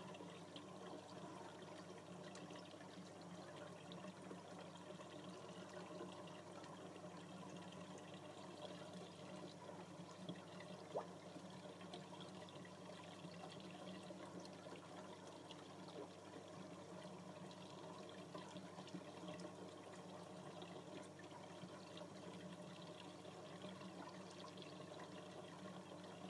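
Faint, steady aquarium water trickle over a constant low hum, with one small tick about eleven seconds in.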